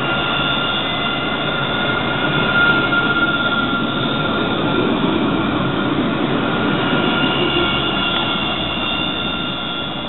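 Montpellier tram passing close and pulling away along street track: a steady rolling rumble with several high-pitched tones held over it, growing slightly fainter near the end.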